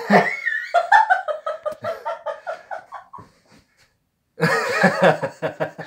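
People laughing: a high-pitched giggling fit in quick repeated pulses, which breaks off for about a second and then returns as a louder burst of laughter.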